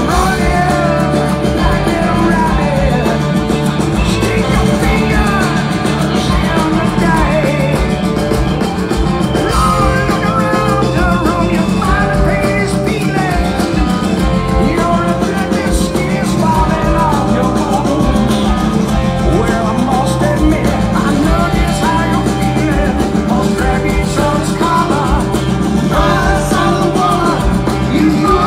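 Live rock band playing on a concert PA, electric guitar lines weaving over bass and drums, heard from within the audience.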